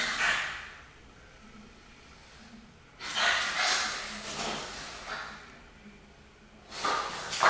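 French bulldog puppies snorting and huffing as they play, in noisy bursts at the start, again from about three seconds in, and near the end.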